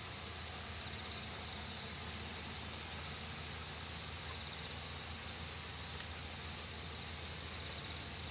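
Steady outdoor ambience over open farmland: an even hiss with a low hum underneath, and a faint high pulsing trill about a second in and again around four seconds in.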